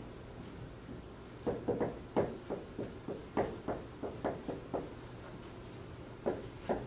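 Marker writing on a whiteboard: a run of short, quick strokes, with a pause of about a second shortly after the middle before the strokes start again.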